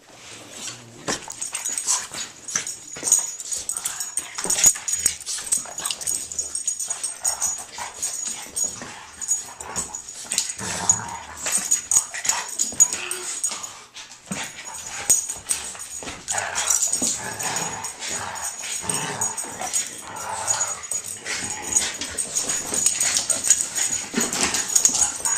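Two dogs play-fighting, a large black dog and a small dog, making short, irregular bursts of dog sounds amid many quick scuffling clicks.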